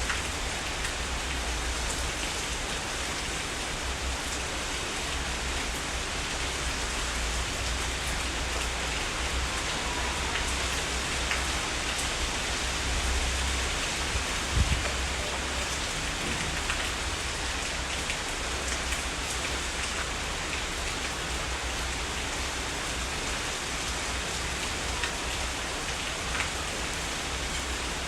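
Heavy rain falling steadily, with scattered individual drops ticking over the hiss and a steady low rumble underneath. About halfway through there is one brief louder knock.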